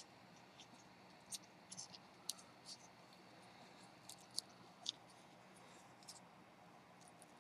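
Faint, scattered clicks and scrapes of a steel kitchen knife blade working at the edge of a Pentium 4 processor's metal heat spreader while prying it off, about eight sharp ticks spread unevenly through otherwise near silence.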